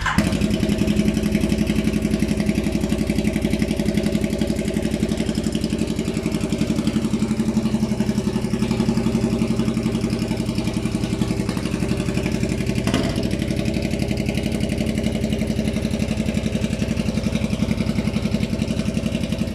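Ducati Diavel's V-twin idling through a very loud aftermarket exhaust, a steady pulsing throb. It catches right at the start and cuts off abruptly at the end.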